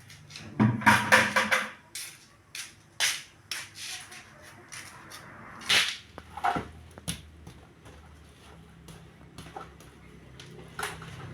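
A series of sharp knocks and clatters, with a quick loud cluster about a second in and scattered single knocks after it.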